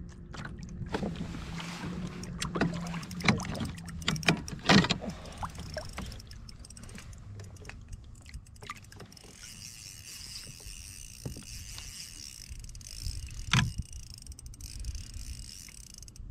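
Knocks and clatter from handling in a small fishing boat, with several sharp thumps in the first five seconds and another about thirteen seconds in, then a steady faint hiss.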